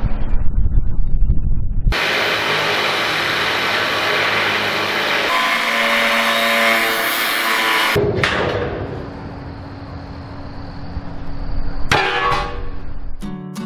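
Angle grinder working the steel plate of a boat hull, spraying sparks, heard in several short clips cut together; the tool's pitch falls away after some of them. Music comes in right at the end.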